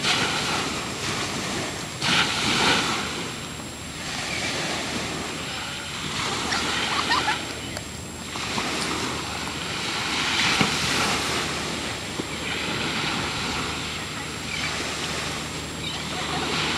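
Ocean waves and wind on the microphone, a rushing noise that swells and falls every few seconds.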